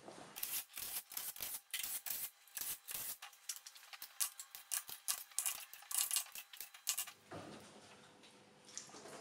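Short, rapid bursts of hissing from a hand-held hose nozzle, triggered again and again to flush a freshly honed engine block clean. The bursts stop about seven seconds in.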